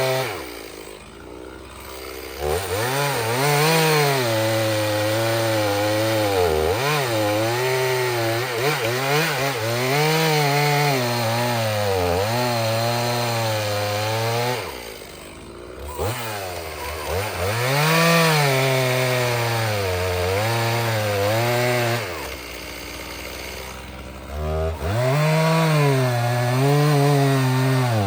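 Stihl chainsaw cutting through seasoned oak at full throttle, its engine pitch wavering as the chain loads up in the cut. It drops back toward idle three times, about a second in, around the middle and a few seconds before the end, then revs up again.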